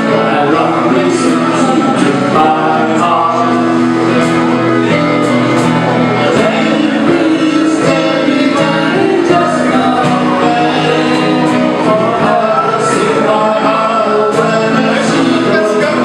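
A band playing a pop song with a male voice singing, cymbals ticking over a steady accompaniment.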